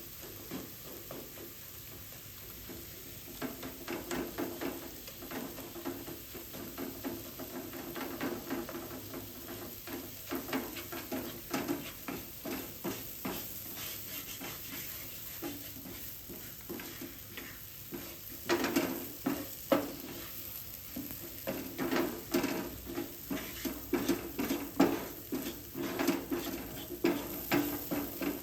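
A spoon or spatula stirring and scraping in a pan of frying curry, with a sizzle underneath. The stirring strokes come quicker and louder in the second half.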